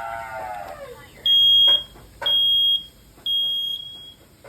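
Battery smoke alarm sounding at cooking smoke: three loud, steady, high-pitched beeps about half a second long, one a second, in the standard three-beep alarm pattern, the last one fainter. It opens with a brief falling voice-like sound.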